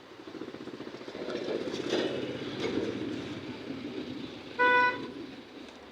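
A motor vehicle's engine running, growing louder to about two seconds in and then fading, with one short horn toot near the end that is the loudest sound.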